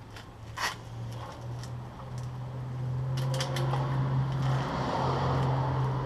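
Scattered metallic clicks and clinks of hand tools and bolts being handled during brake caliper work, with a louder rustle and clatter in the second half, over a steady low hum.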